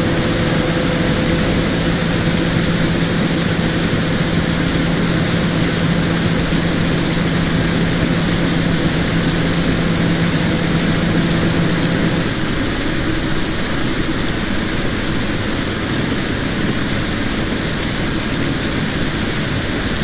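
Steady machine noise: a constant hum with a high whine, which changes abruptly about twelve seconds in, where the hum tones drop out.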